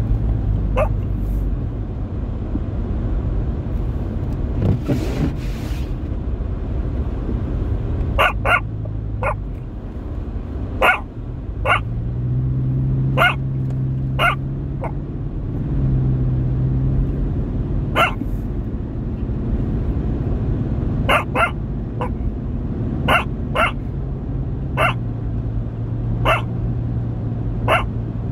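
Car cabin noise while driving: a steady low hum of engine and tyres, broken by short sharp sounds at irregular intervals, some in quick pairs.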